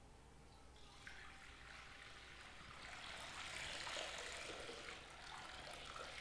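Water poured from a glass pitcher into a glass baptismal font: a faint trickling stream that starts about a second in, grows fuller in the middle and thins again near the end.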